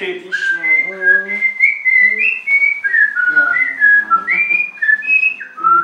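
A man whistling a string of clear, fluty notes that step and slide between pitches, imitating a common blackbird's song.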